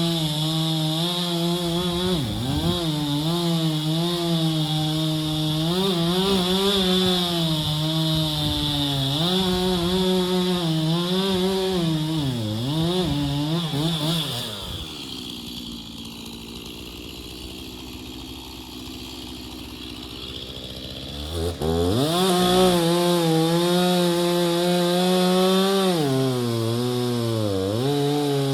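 Gas chainsaw cutting into a hickory trunk, its engine pitch sagging and recovering under load. About halfway through it drops to idle for roughly seven seconds, then revs back up and cuts on.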